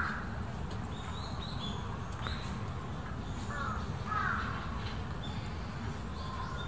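Crows cawing: one caw at the start and two more close together about three and a half seconds in. Small birds chirp faintly between them over a steady low rumble.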